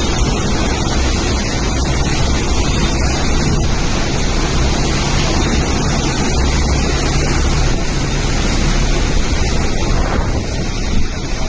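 Loud, steady rushing noise with a deep, uneven rumble: wind buffeting the microphone.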